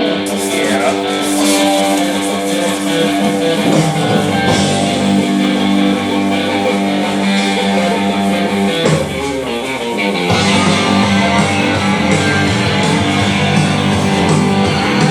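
Background music led by guitar, with a change in the arrangement about ten seconds in.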